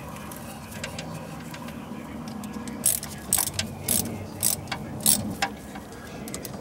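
A flat-blade screwdriver turning the worm screw of a stainless worm-drive hose clamp, tightening it onto a coolant hose. The clamp gives a string of irregular clicks and scrapes from about three seconds in.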